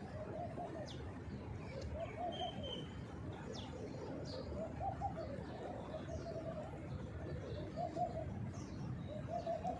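Pigeons cooing again and again, a low wavering coo every second or two, with short high chirps from small birds over a steady low background rumble.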